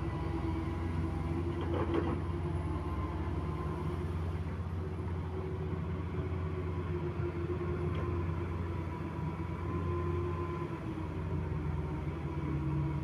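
Komatsu hydraulic excavator's diesel engine running steadily as the machine digs and swings, with a steady whine over the low hum. A brief knock comes about two seconds in.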